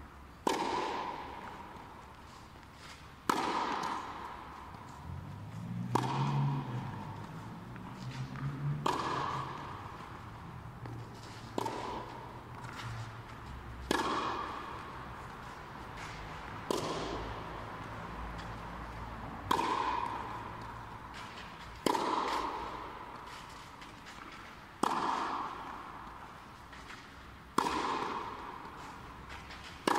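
Tennis racket striking the ball in a steady rally, a sharp hit about every three seconds, each one ringing on in the echo of an inflated air-dome tennis hall.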